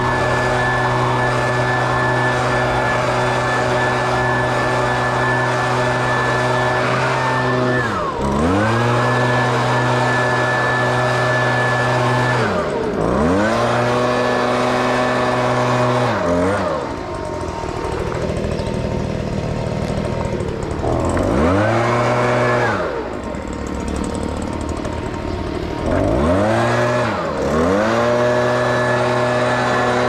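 Hustler Trimstar 52-inch walk-behind mower's engine running steadily, its pitch dipping sharply and climbing back up several times.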